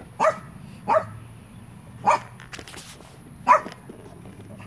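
A dog barking four times, in single short barks spaced unevenly about one to one and a half seconds apart.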